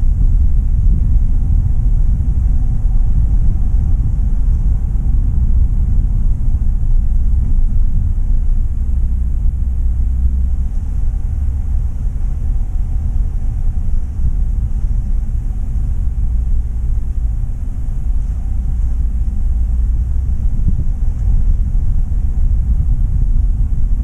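Steady low rumble of a car being driven: engine and road noise heard from the moving vehicle.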